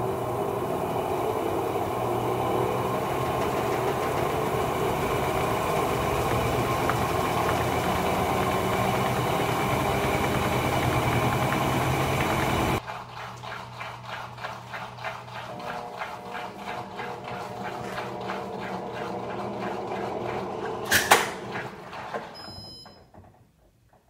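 Electrolux top-loading washing machine in its final spin: the motor runs steadily, then cuts off abruptly about 13 seconds in, and the basket coasts down with a fast rhythmic ticking. A single loud clunk comes about 21 seconds in, and the sound dies away as the machine stops at the end of its cycle.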